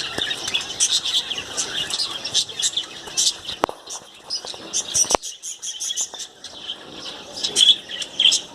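Parrots chattering: a steady run of short, high chirps, with two sharp clicks about a second and a half apart near the middle.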